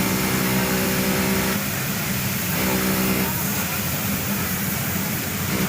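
JUKI industrial sewing machine stitching in two short runs: one lasts until about a second and a half in, then it stops and runs again briefly a second later. A steady din of workshop noise continues throughout.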